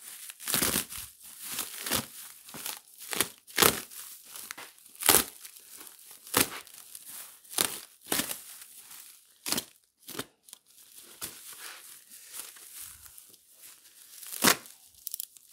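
Plastic protective film and packaging being torn and crumpled by hand, a quick irregular run of rustles and sharp rips.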